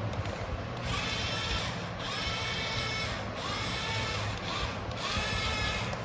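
Small electric motor and gears of a radio-controlled scale crawler whining in four short bursts of throttle over a steady low rumble.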